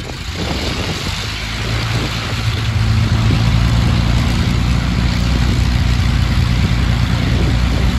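Avro Lancaster bomber's piston engine starting up: the sound builds over the first few seconds, then settles into a steady, loud running note.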